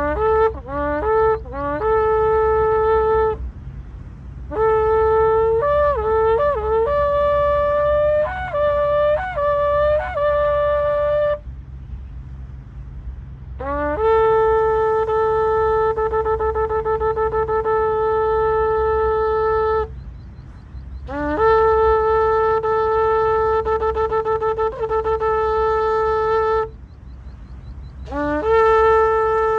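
Shofar blown in five calls. The first two are strings of short notes that jump between pitches, and the later three are long held notes, with gaps of one to two seconds between calls.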